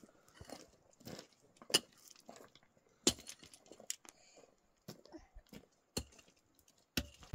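A scatter of irregular sharp clicks and knocks, a dozen or so, with the two loudest about two and three seconds in and little sound between them.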